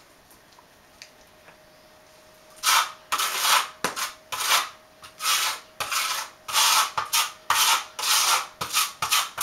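Notched steel trowel scraping acrylic tile adhesive (pre-mixed mastic) across a cement floor in short back-and-forth strokes, about two a second, starting a little under three seconds in.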